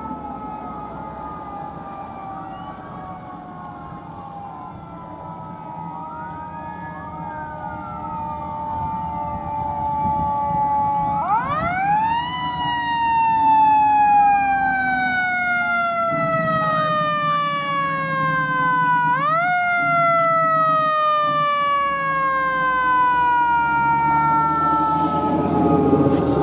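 Fire engine sirens on a convoy of responding fire trucks. One siren winds up sharply about eleven seconds in and slowly falls, then winds up again a little past two-thirds of the way and falls again. The engines of the approaching trucks rumble louder near the end.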